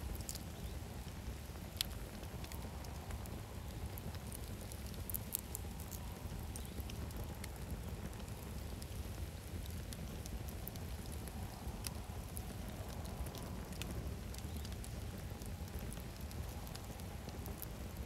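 Wood campfire of split logs burning, crackling with scattered small pops and snaps, the sharpest about two seconds in and around five seconds in, over a steady low rumble.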